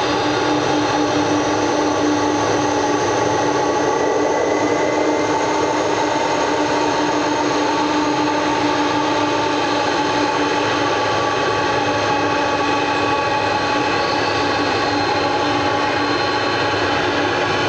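Airliner jet engines running steadily at low power: an even rush with several steady whining tones.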